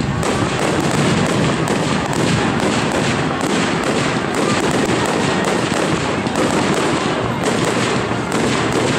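Fireworks going off in a rapid, unbroken barrage of bangs and crackling pops, with coloured bursts following rising sparkling tails.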